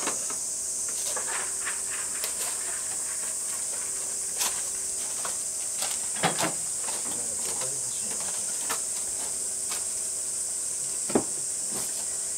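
Steady high-pitched drone of summer insects, with a few knocks and clicks of things being handled and set down on tables, the sharpest about six seconds in and again near the end.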